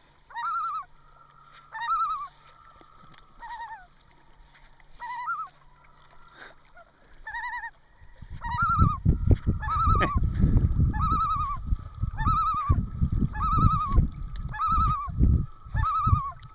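Common loon giving its quavering tremolo call over and over, the agitated alarm call of a disturbed loon. The calls are spaced out at first and come nearly back to back from about eight seconds in, when a loud low rumbling noise close to the microphone also starts.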